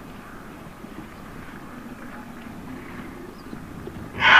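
Faint, even outdoor background. Near the end a loud, high elephant scream suddenly begins, wavering in pitch.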